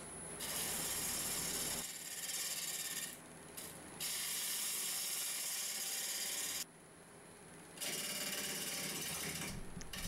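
Lathe gouge cutting into a spinning, long-dried Osage orange log, a loud hissing, shearing noise from the roughing cut. It comes in several long passes that break off briefly about three seconds in and again near the seventh second.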